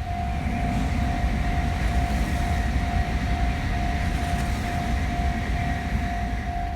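Japanese level-crossing warning bell ringing in a rapid, even repeat while a train rumbles past over the crossing.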